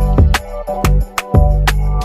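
Background music with a steady beat, strong bass and drum hits.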